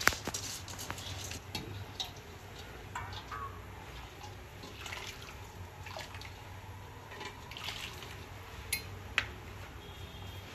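Basmati rice tipped from a steel bowl into a large steel pot of hot water, with water pouring and dripping in and light clinks of the bowl against the pot. There is a sharp clink at the start, and a few more near the end.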